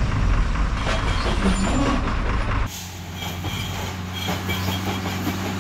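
Heavily loaded Ashok Leyland truck's diesel engine running with a heavy low rumble. About two and a half seconds in it drops to a quieter, steady hum.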